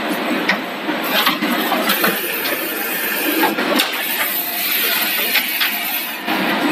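Automatic shrink packing machine running: a steady mechanical clatter broken by repeated sharp clicks from its moving parts.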